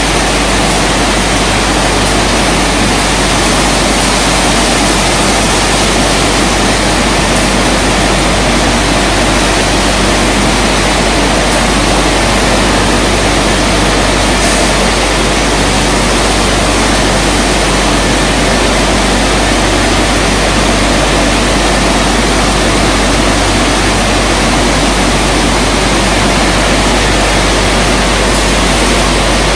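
Risense CC-690 tunnel car wash machine running: a steady, loud rush of water spray and spinning brushes scrubbing a car.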